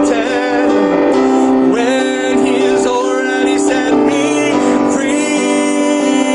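A man singing a slow worship song, with vibrato on held notes, over sustained keyboard chords.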